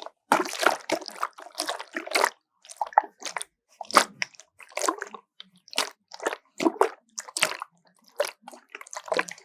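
Water sloshing and gurgling inside a bottle, in short irregular splashes about two or three a second.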